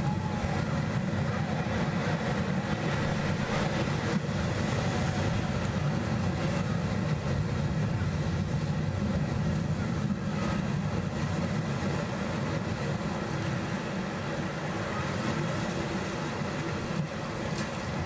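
Sea surf washing and swirling over rocks on a rocky shore, a continuous low rush without pauses.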